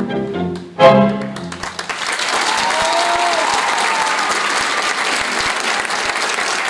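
A tango orchestra recording with strings ends on a final accented chord about a second in. Audience applause rises and carries on steadily.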